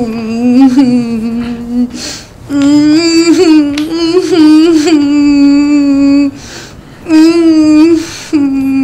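A woman wailing in long, drawn-out, wavering moans: one cry of about two seconds, a longer one of nearly four, a short one, and another starting near the end.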